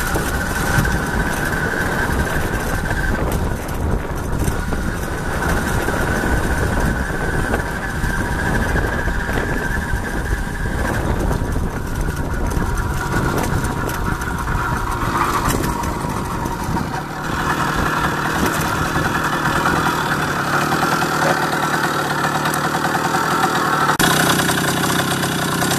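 Freshly rebuilt D8 single-cylinder two-stroke motor-bicycle engine running as the bike is ridden along a bumpy dirt track, with road rumble under it. It picks up revs well under load. About two-thirds in the rumble drops away, and near the end the engine idles with the bike standing.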